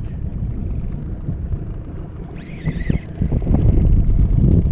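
Wind buffeting the microphone with a heavy low rumble, over the high ticking whir of a spinning reel being cranked in against a hooked, fighting fish. A brief high squeal comes about two and a half seconds in.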